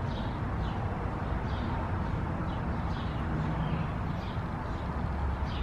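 Outdoor background: a steady low rumble under repeated short, high chirps, about two a second, from a small bird or insect.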